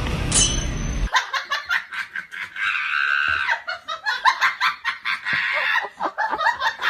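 Background music cuts off about a second in, and a person starts laughing in a long run of quick bursts.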